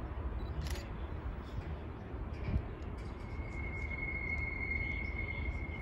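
Outdoor background noise: a steady low rumble, with a single steady high-pitched tone held for about two and a half seconds in the second half.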